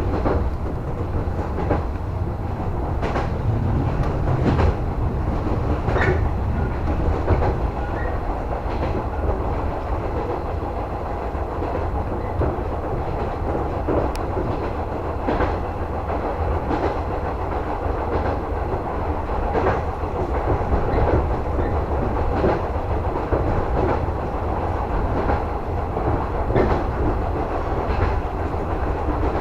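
JR West 115 series electric train running, heard from inside the leading car: a steady low rumble with irregular clacks of the wheels over rail joints.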